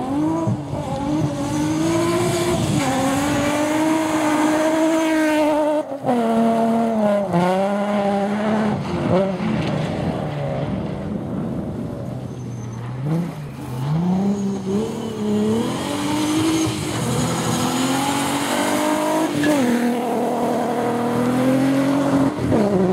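Nissan 350Z rally cars' V6 engines revving hard through the gears on a gravel stage. The pitch climbs and then drops sharply with each shift or lift, several times over.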